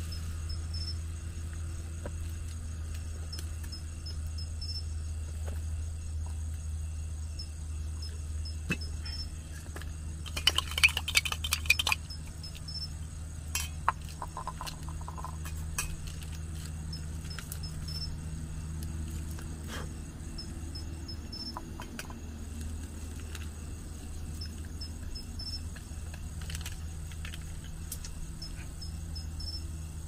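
Insects, likely crickets, chirping in short repeated bursts over a steady low rumble. A brief cluster of clicks and rattles comes about ten seconds in.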